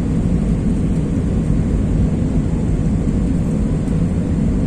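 Steady low rumble of an airliner in flight, heard from inside the passenger cabin: engine and airflow noise, even and unchanging.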